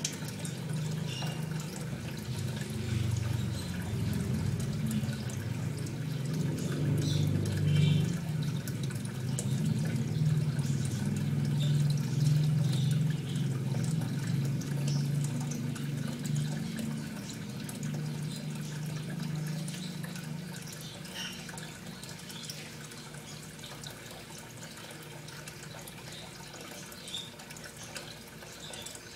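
Running water with a low rumble and scattered drips and trickles, swelling through the middle and growing quieter in the last third.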